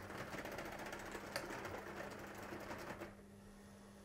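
Model railway boxcars clattering with rapid fine clicks as they are pushed backwards over a set of points, their wheels derailing one car after another. The clatter stops abruptly about three seconds in as the train comes to a halt.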